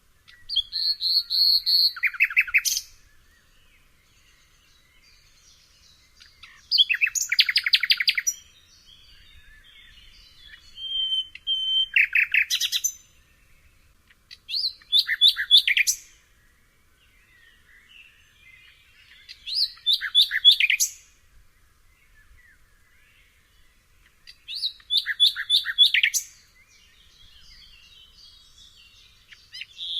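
Nightingale singing: six short phrases of rapid repeated notes and trills, each a second or two long, separated by pauses of a few seconds.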